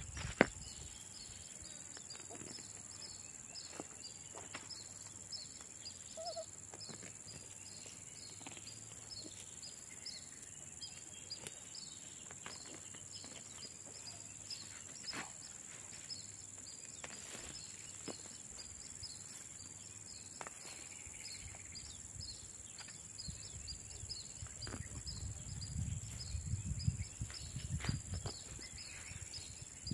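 Insects chirping and droning steadily, with a regular high chirp a few times a second, over scattered faint rustles and clicks of peanut plants being pulled from dry, sandy soil. Louder rustling and footsteps in sandals come near the end.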